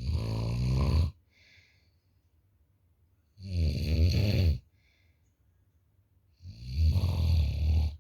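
Very heavy snoring: three long, loud snores about three seconds apart, each followed by a short, fainter breath.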